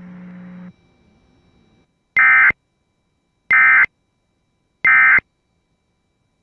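Emergency Alert System end-of-message code: three identical short, raspy digital data bursts, about a second and a half apart, signalling that the alert has ended. A low steady hum cuts off under a second in.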